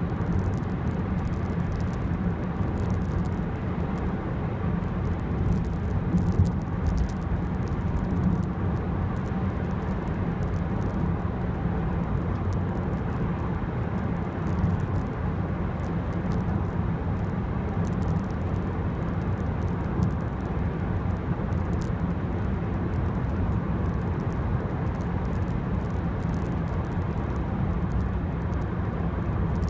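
Interior sound of a 2005 Peugeot 206 1.4 HDi on the move: its 8-valve common-rail turbo-diesel running, with tyre and road noise, heard from inside the cabin as a steady low drone with no revving.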